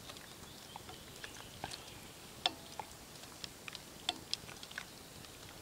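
A metal spoon scooping soup from a pot into a bowl: faint, irregular light clinks and scrapes, a dozen or so scattered through, with a brief ringing clink about two and a half seconds in.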